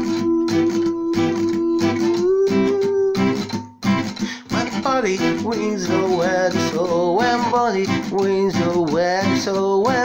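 Acoustic guitar strummed under a man's singing voice: he holds one long note for about the first three seconds, breaks off briefly near four seconds, then carries a wavering melody without clear words.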